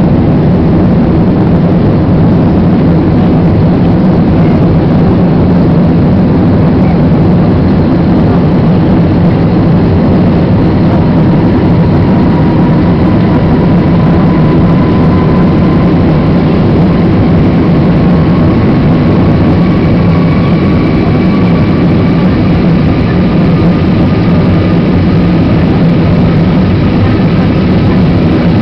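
Airbus A320 cabin noise in the climb after takeoff: a loud, steady drone of the jet engines and rushing air. A faint whine slowly rises in pitch from about halfway through.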